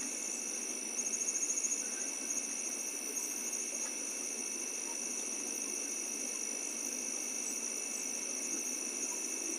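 Crickets and other night insects chirring as a steady, high-pitched chorus of several tones. About a second in, a nearer one adds a brief, louder, rapid pulsing trill.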